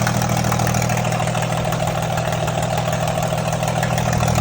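Heavy engine idling steadily while misfiring on one or more cylinders.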